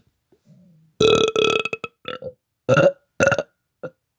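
A man burping: one long, loud burp about a second in, followed by four shorter burps.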